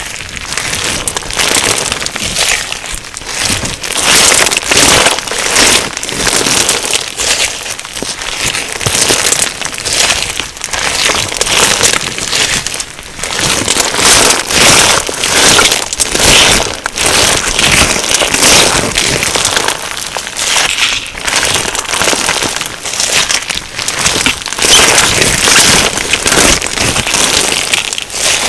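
Crunchy slime packed with sugar beads being squished and stretched: dense crackling and crunching made of many tiny pops, swelling and easing in waves every second or two.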